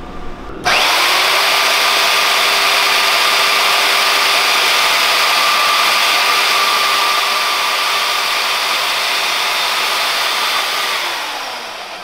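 Portable band saw switched on about a second in and running steadily as its blade cuts through a plastic motorcycle fender, then winding down with a falling pitch near the end as it is switched off.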